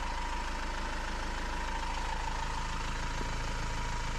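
Steady engine hum at idle, with a constant high whine running through it.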